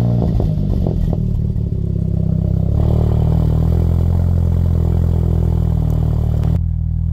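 Turbocharged 2.0-litre four-cylinder (EA888) of a 2019 VW Jetta GLI with an aftermarket intake, turbo inlet and turbo muffler delete, heard at the exhaust tip just after a cold start. It runs unevenly for about the first second as it catches, then settles into a steady, fast cold-start idle that turns quieter near the end.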